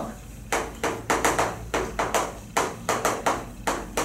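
Chalk writing on a blackboard: a quick series of sharp chalk taps and strokes, about three a second, starting about half a second in.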